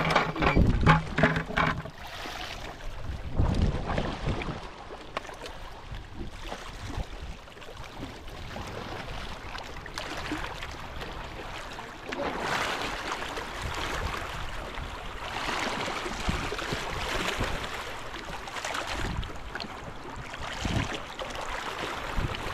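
Wind buffeting the microphone and water sloshing on a small boat at sea, swelling and fading in gusts, with a brief humming tone in the first second or so.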